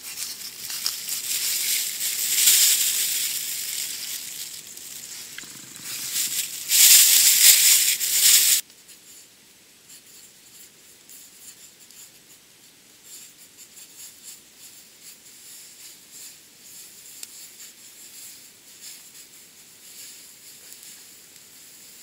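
Small wood-burning camp stove crackling and hissing under a pot of water as frozen pelmeni are added, loudest in a burst near eight seconds in. The sound then cuts off abruptly and only faint crackling remains.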